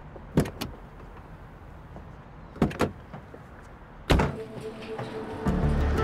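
Car doors of a Volkswagen sedan being opened and shut: a few short clicks of handles and latches, then a door slamming shut about four seconds in, the loudest sound. Background music comes in about five and a half seconds in.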